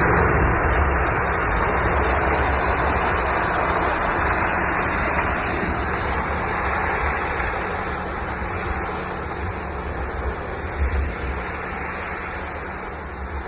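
Land Rover Discovery driving off-road: steady engine and tyre rumble mixed with wind on the microphone, slowly growing quieter, with a couple of brief knocks about ten seconds in.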